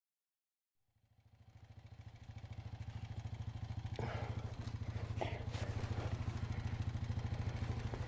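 An engine running steadily, a low, fast-pulsing hum that fades in after about a second of silence. Brief knocks come about four and five seconds in.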